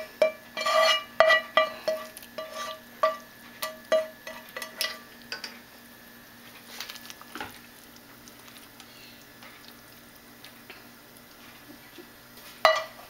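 A spoon scraping and tapping against a frying pan and a stainless steel pot, the pans ringing at each tap as sauce is scraped out of the pan into the pot. Then a quieter stretch of stirring with a few soft taps, and one sharp clank near the end.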